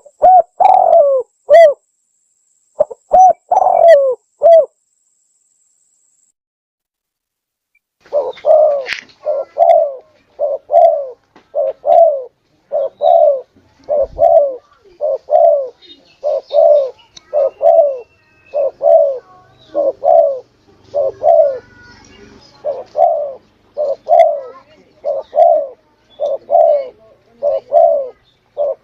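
Spotted dove (tekukur) cooing, recorded as a lure call for attracting doves. A few coos come first, then a pause of about three seconds, then a long even run of coos at a little over one a second.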